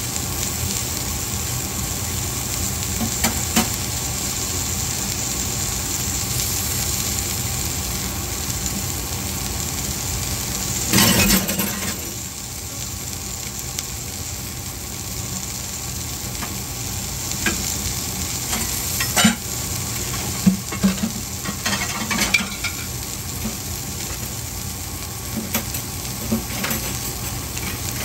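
Green beans and onions sizzling as they fry in a pan, with a utensil scraping and knocking against the pan now and then. The loudest scrape comes about eleven seconds in.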